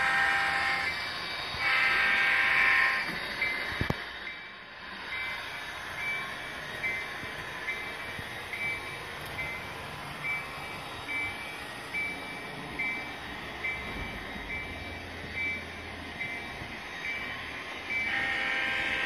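HO-scale model diesel locomotive's sound decoder playing through its small onboard speaker. The horn sounds twice in the first three seconds, then the bell rings steadily, about once every three-quarters of a second, and the horn sounds again near the end.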